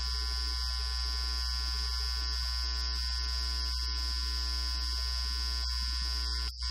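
Steady electrical buzz: a strong low hum under a thin high whine, stopping abruptly near the end.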